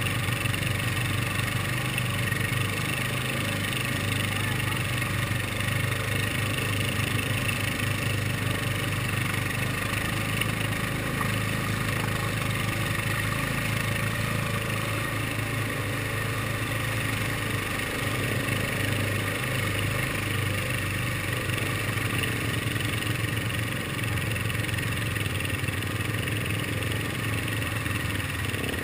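ATV engine running steadily at low throttle as the quad wades through a muddy, water-covered trail.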